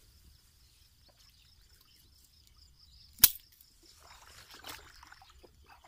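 A single sharp click about three seconds in, then soft rustling in grass at the water's edge, over a faint steady high-pitched hum.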